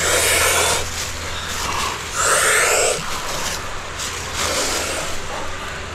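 Several people doing Wim Hof Method power breathing: deep, forceful breaths drawn in and let out, one about every second, close to the microphone.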